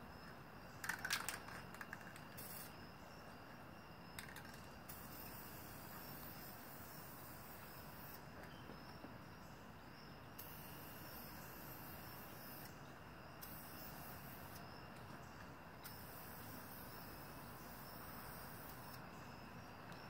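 Quiet outdoor ambience: a steady faint hiss with a thin, high insect-like hum. A short cluster of clicks about a second in, and one more click near four seconds.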